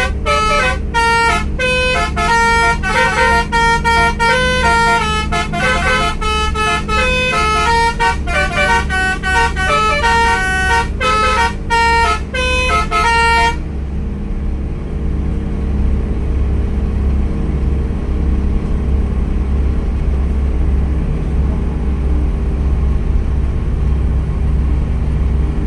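Bus telolet basuri horn playing a tune of short and held multi-tone notes over the steady hum of the bus's engine. The horn stops abruptly about halfway through, leaving only the engine running.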